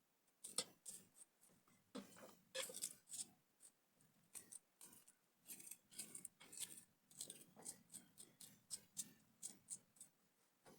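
A kitchen knife cutting through fresh vegetables held in the hand: faint, short snips and clicks, irregular, about one or two a second.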